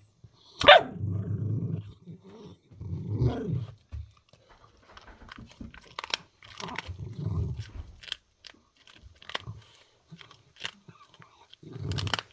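A dog crunching and chewing on a duck neck, the bones cracking in sharp clicks. Low growls come in several times, a warning at a kitten close by.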